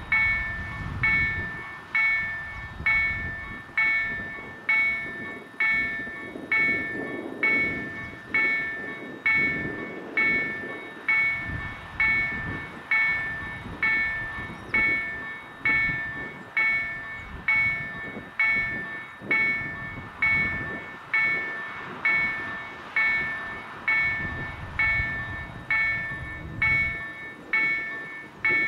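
Level-crossing warning bell ringing steadily, about one stroke a second, each ring fading before the next, while the barriers are lowered: the warning that a train is approaching.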